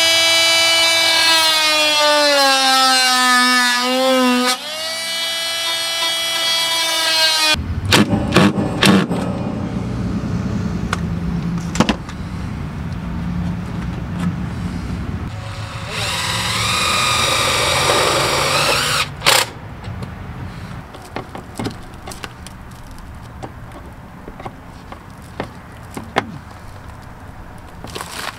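Power drill cutting a hole through a plywood ceiling panel: its motor whines loudly, sinks in pitch as the cutter bites, and stops abruptly about seven and a half seconds in. Handling knocks and rustling follow, with a second short power-tool whine about sixteen seconds in and softer taps near the end.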